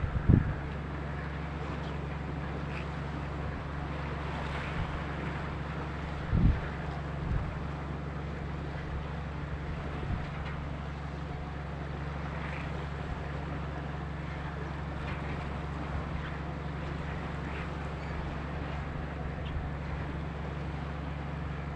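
Steady low drone of a boat's engine with wind noise on the microphone. Low wind thumps come just after the start and again about six seconds in.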